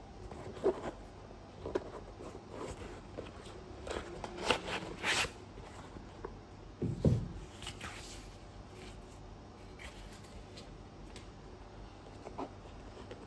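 Hands handling a synthetic football boot and its insole: irregular rustling, scraping and crinkling of the knit upper and insole, with a soft low thump about halfway through.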